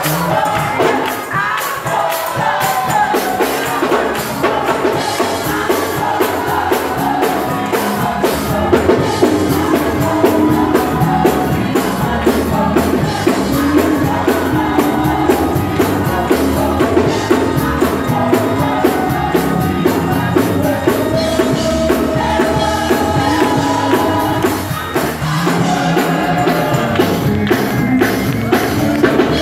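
Live gospel music in a church: voices singing over a fast, steady driving beat.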